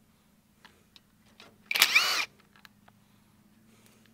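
Cordless 18 V drill with a socket, run in one short burst about two seconds in, its motor whine rising as it spins up and falling as it stops, backing out a small 10 mm bolt on an ARB dual air compressor. A few faint clicks around it.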